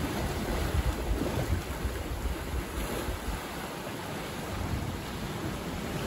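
Ocean surf breaking and washing over sand and around rocks, with wind buffeting the microphone; the wash eases off a little past the middle.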